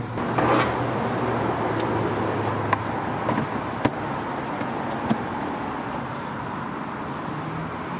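A plastic engine cover being fitted onto a 2.4-litre MultiAir engine: a handful of light, sharp clicks and knocks, over steady background noise.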